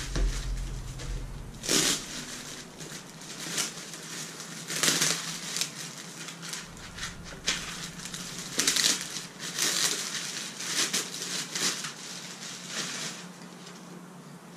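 Clear plastic shipping bag crinkling and rustling in irregular bursts as it is pulled off a small inverter stick welder.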